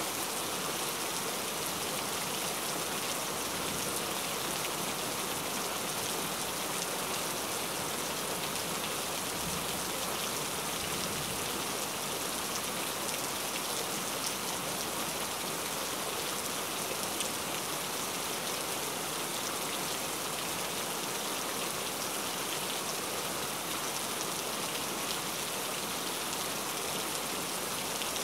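Heavy rain falling steadily, an even hiss of drops on surfaces with no break or change.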